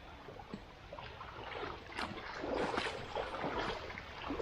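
Fast-flowing floodwater rushing and gurgling, with many small irregular splashes that grow busier about halfway in.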